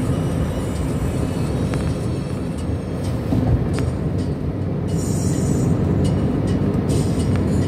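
Steady road and wind noise from a vehicle travelling at speed on a freeway, mostly a low rumble.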